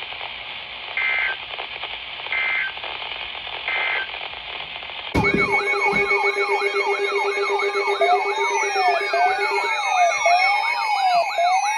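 Weather-radio static with three short bursts of data tones, the EAS end-of-message code that closes a broadcast warning. About five seconds in, several electronic siren tones start at once and run over each other, some wailing up and down and some sweeping down.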